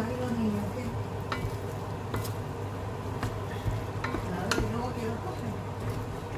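A wooden spatula stirring beef and carrots in an enamelled cast-iron casserole, scraping the pot and knocking against its side several times at irregular intervals. The stew sizzles steadily underneath.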